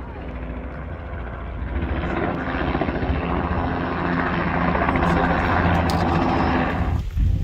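Red two-bladed light helicopter flying by, its rotor beating rapidly over the engine note and growing louder over the first five seconds. The sound cuts off abruptly about seven seconds in.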